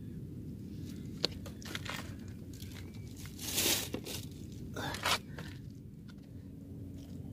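Close handling and movement noises: a sharp click, then a few short crunching, scraping rustles, the loudest about halfway through, over a steady low rumble.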